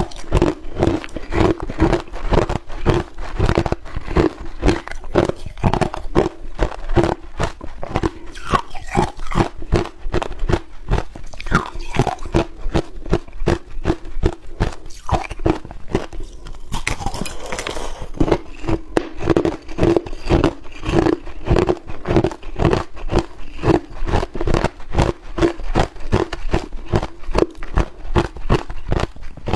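Crushed ice being bitten and chewed close to the microphone: a steady, rapid run of sharp, brittle crunches several times a second.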